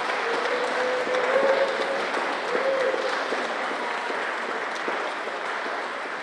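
Audience applauding at the end of a song, with a faint pitched voice calling out over the clapping in the first three seconds.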